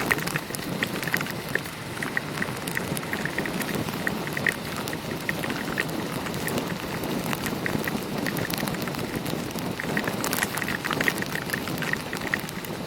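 Heavy rain in a thunderstorm striking a motorcyclist's camera and gear while he rides: a steady rush dotted with many sharp drop hits.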